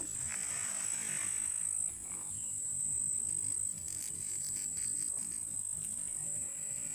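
Insects giving a steady, high-pitched chirring drone, with faint pulsing in it for a couple of seconds midway.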